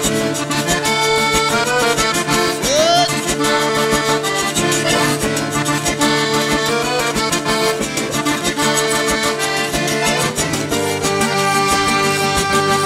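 Instrumental break of a zydeco song: diatonic button accordion playing the melody in held, reedy notes, over the fast, steady scraping rhythm of a frottoir (rubboard).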